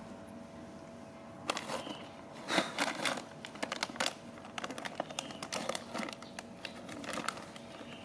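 Foil snack packet crinkling as it is handled: quiet at first, then irregular crackles and clicks from about a second and a half in.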